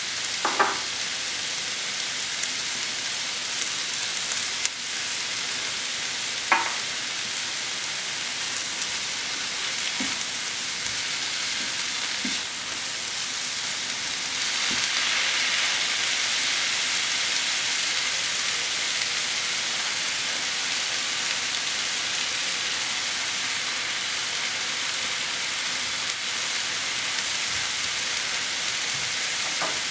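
Vegetables (onion, grated carrot, tomato and bell pepper) sizzling in a nonstick frying pan, with two short sharp clicks near the start. About halfway through the sizzle gets louder as the vegetables are stirred with a spatula.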